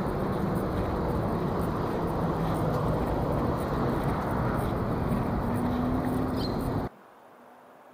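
Steady motor-vehicle engine rumble with a faint shifting hum, cutting off suddenly about seven seconds in.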